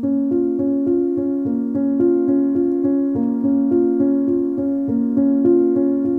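Intro music played on a keyboard: a melody of short, even notes, about three a second, over a held low note.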